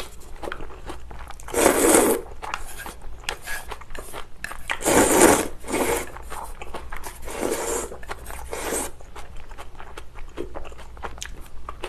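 A person eating noodle soup close to the microphone: several loud slurps of wheat noodles and broth from a small bowl, the loudest about five seconds in, then chewing with many small wet mouth clicks.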